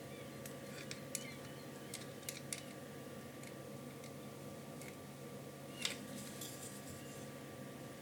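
Scattered small, sharp clicks of M3 steel nuts being handled and pressed into their recesses in a 3D-printed plastic leg, with a louder click about six seconds in, over a faint steady hum.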